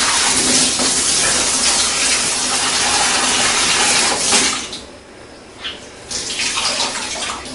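Tap water running into a sink as clothes are rinsed by hand. The flow cuts out about four and a half seconds in, then resumes more quietly a second and a half later.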